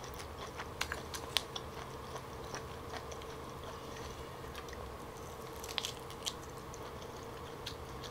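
Close-up mouth sounds of someone chewing soft smoked turkey leg meat: scattered wet clicks and smacks, over a faint steady hum.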